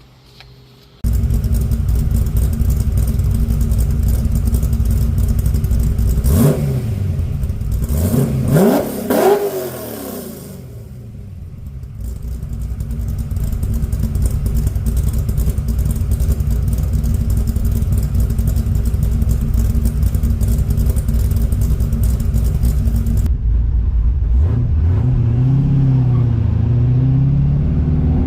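Dart 347 stroker small-block Ford V8 with an XFI 236 hydraulic-roller cam and Magnaflow exhaust, running. It is revved up and down a few times about six to ten seconds in, then runs steadily. Near the end the engine pitch rises and falls again, as when it is revved or driven.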